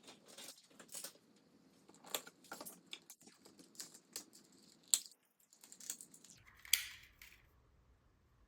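Light plastic clicks, taps and handling noises from a smoke alarm being worked on for a battery change, irregular and faint, with a sharper click about halfway through and a louder rattling snap soon after.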